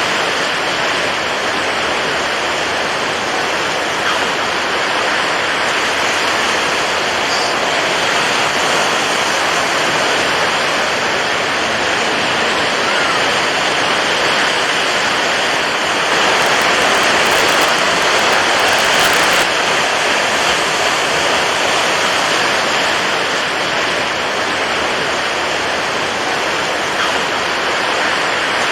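Steady rushing water, a dense even hiss, swelling slightly for a few seconds about midway through.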